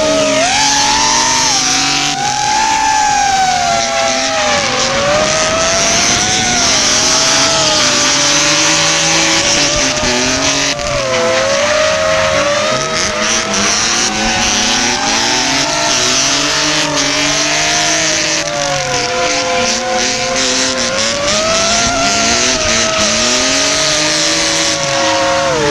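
An FPV racing drone's motors whine, the pitch wavering up and down with the throttle, over drift cars' engines revving and tyres squealing as they slide in tandem.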